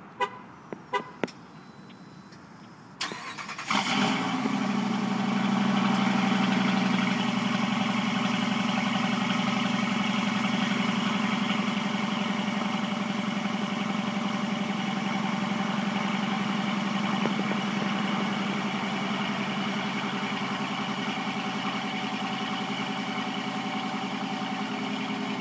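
A few clicks, then about three seconds in the starter cranks briefly and the 2012 Dodge Durango R/T's 5.7-litre HEMI V8 fires. It settles into a steady cold-start idle at the exhaust, easing slightly in level as it runs.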